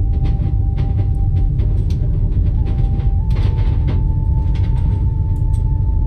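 Steady deep rumble of a moving train carriage, with scattered light clicks and rattles and a short hiss about three and a half seconds in. A held musical tone sits over it, stepping to a new pitch a few times.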